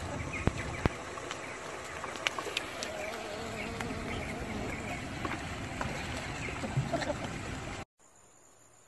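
Penguins walking on a concrete path: a steady noisy background with scattered clicks and taps. It cuts off suddenly about eight seconds in, leaving near silence.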